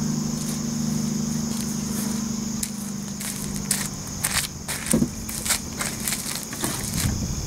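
Rustling, crinkling and clicks of camouflage chest waders being handled and pulled from an SUV's cargo area. These pick up about a third of the way in, over a steady high-pitched drone and a low hum that fades out about halfway.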